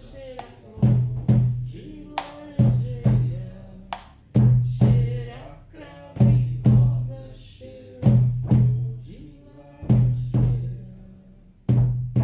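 Shamanic frame drums beaten in a slow heartbeat rhythm: a strong low boom followed closely by a softer one, the pair repeating about every two seconds.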